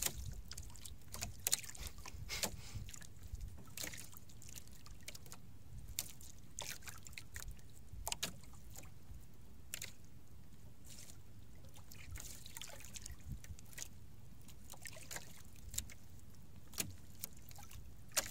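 Water lapping and splashing against the hull of a small boat drifting at sea, over a steady low wind rumble, with scattered small splashes and clicks.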